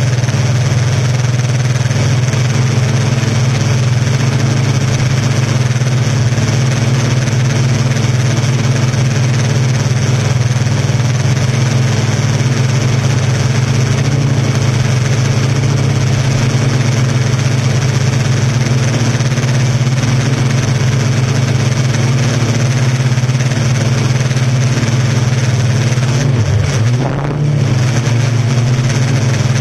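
Yuneec Typhoon Q500 4K quadcopter's electric motors and propellers running in flight, a loud steady hum picked up by its own onboard camera. Near the end the pitch wavers and dips briefly as the motor speeds change.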